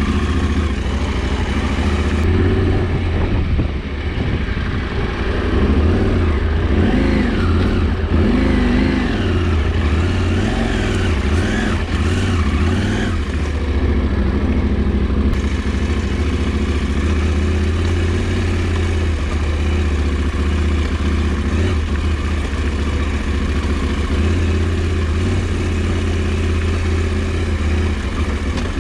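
KTM 790 Adventure's parallel-twin engine running at low revs, its pitch rising and falling over the first half, then holding steady.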